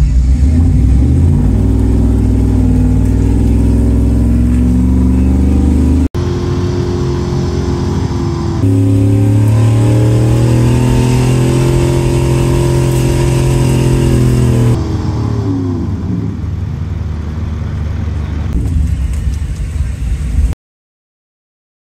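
Truck engine running hard under load during a truck pull, heard from inside the cab. The revs climb about nine seconds in and hold steady, then fall away from about fifteen seconds as the pull ends. The sound cuts off suddenly near the end.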